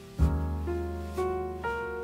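Background piano music: a low bass note enters about a fifth of a second in, then single notes climb upward, one about every half second, each ringing on as it fades.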